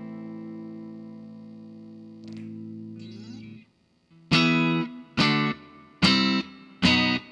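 Squier Stratocaster electric guitar through a Vox AD-100VT XL modelling amp with distortion. A held chord rings and slowly fades, then there is a little string scratching and a short pause. Four short, choppy chords follow, about a second apart.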